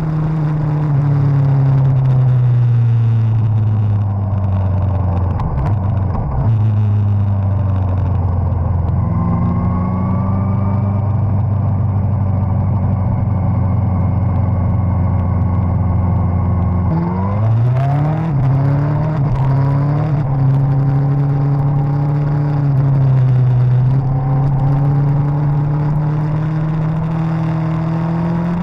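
Suzuki GSX-R1000's inline-four engine heard from on board while riding. The revs fall over the first several seconds, hold steady for a long stretch, then climb sharply a little past the middle and keep rising and falling after that.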